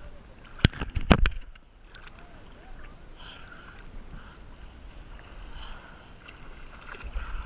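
Sea water lapping and sloshing against an action camera held at the surface, with a few sharp splashes about a second in, then a steady lower wash of moving water.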